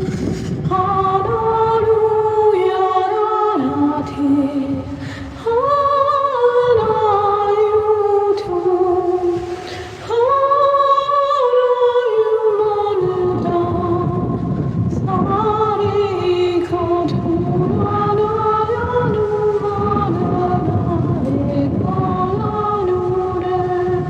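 Unaccompanied wordless singing: long held vowel notes that step from pitch to pitch, with brief pauses about five and ten seconds in.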